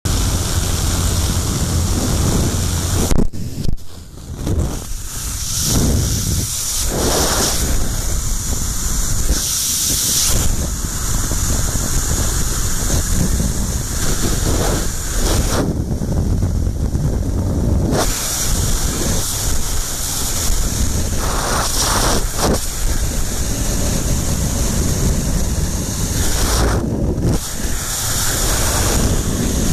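Freefall wind rushing over the camera's microphone: a loud, steady rush of air that wavers and buffets, with a brief drop about three to four seconds in.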